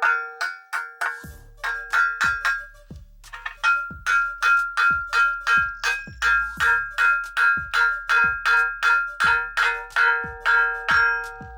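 Hammer driving a nail through a steel shovel socket into its new wooden handle: rapid, steady blows, about three a second, each with a bright metallic ring. There is a short pause about three seconds in.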